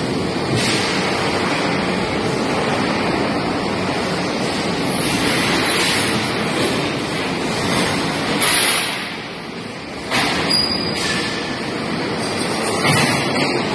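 Electric overhead bridge crane travelling along its runway rails with a steel coil on its hook: a steady mechanical rumble and hiss from the travel drive and wheels. It eases off briefly about nine seconds in, then carries on.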